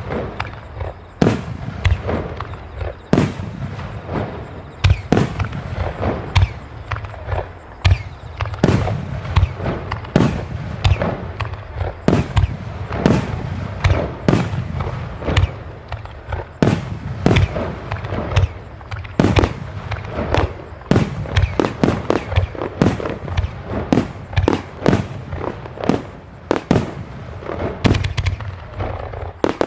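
Aerial fireworks in a finale barrage: a dense, irregular run of shell bursts, several bangs a second, over a continuous rumble of echoing booms.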